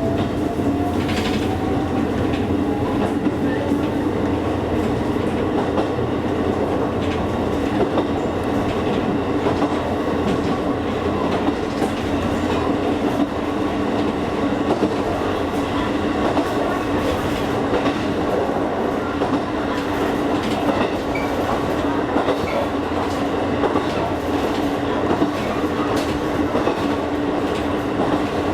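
Electric train of the Kakogawa Line running along the track, with a steady hum and the clickety-clack of wheels over rail joints. A faint whine rises in pitch in the first few seconds as the train picks up speed.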